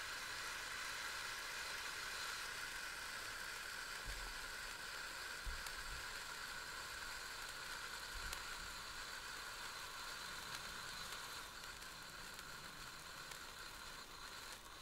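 Ice fountains (small sparkler fountains) hissing steadily as they burn, the hiss slowly getting quieter as they burn out one by one. A few soft low bumps come in between.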